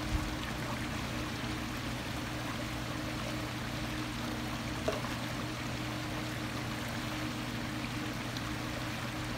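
Water being poured from a plastic jug into a water pump's PVC inlet line to fill it for priming, over a steady wash of running water and a low mains hum from the tank's circulation equipment.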